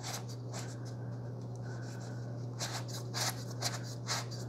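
Fingers turning the ribbed fluid-drag adjustment knob of a Manfrotto 504X fluid video head, giving soft rubbing and a few short scrapes, mostly in the second half. The adjustment is stepless, with no clicks. A steady low hum runs underneath.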